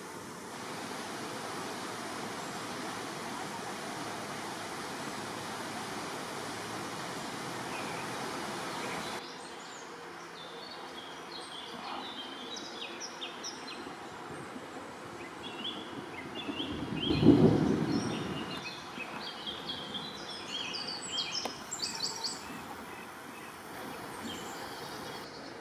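Steady rush of flowing stream water. It cuts to a quieter background where small birds chirp and twitter, with one brief low rushing noise, the loudest moment, about two-thirds of the way through.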